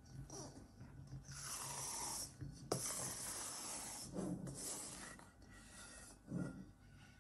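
Plastic bowl scraper folding thick chocolate macaron batter in a stainless steel bowl: wet scraping and squelching as the batter is pressed and dragged against the bowl's side, with one sharp click about two and a half seconds in. This is the macaronage stage, working the batter until it turns glossy and reaches the right consistency.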